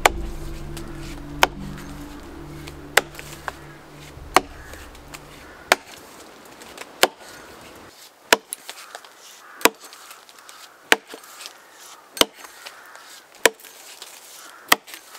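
Axe chopping into a fallen log, a dozen even strokes about one every second and a half, each a sharp knock into the wood as a notch is cut into the trunk.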